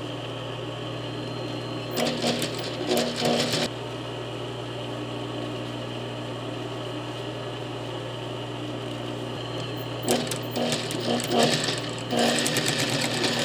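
Industrial sewing machine stitching in short bursts: about two seconds in, around ten seconds in, and again near the end. Between the bursts its motor runs on with a steady low hum.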